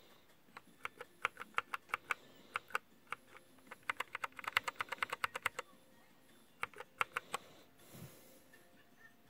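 Keystrokes on a Glorious GMMK mechanical keyboard with Gateron Brown switches: runs of quick key presses, fastest about four to five seconds in, then a few scattered presses and a soft bump near the end.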